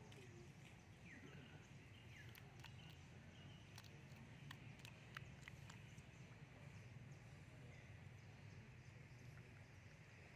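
Near silence: faint outdoor ambience with a few soft, scattered clicks and a couple of faint short chirps in the first few seconds.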